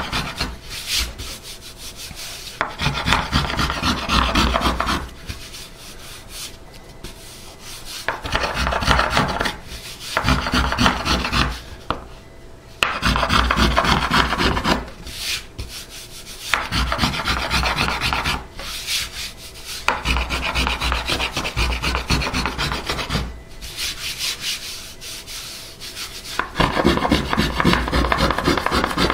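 Small finger plane shaving a carved wooden guitar top by hand: runs of quick scraping strokes lasting a few seconds each, with short pauses between.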